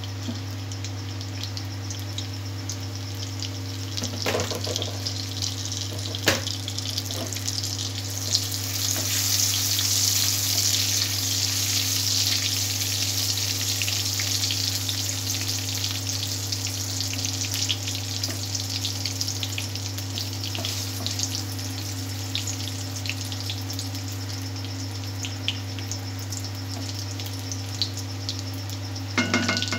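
Whole spices (dried red chilli, cumin seeds and whole garam masala) sizzling in hot refined oil in a metal kadai: the tempering, or phoron, at the start of cooking. The sizzle swells a few seconds in and then settles, over a steady low hum. It is punctuated by a couple of clicks of a metal spoon against the pan, with a clatter near the end.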